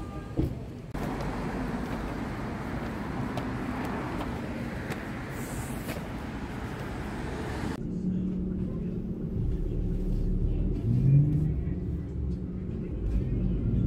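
Outdoor ambience, a steady even hiss, then about eight seconds in an abrupt change to the low rumble and steady drone of a moving vehicle heard from inside.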